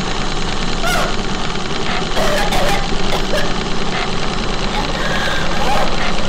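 A woman choking and gasping for breath, letting out short strained croaks that rise and fall in pitch, over a loud steady low drone.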